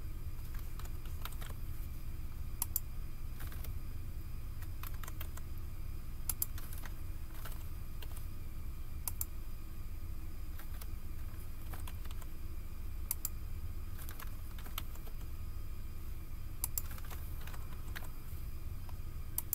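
Typing on a computer keyboard: scattered, irregular key clicks over a steady low hum.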